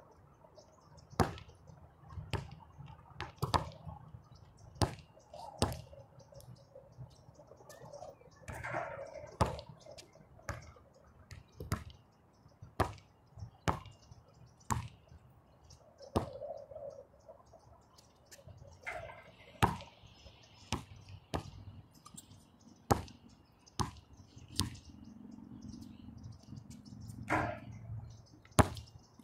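A basketball bouncing on an outdoor hardcourt as it is dribbled: a string of sharp bounces, roughly one a second.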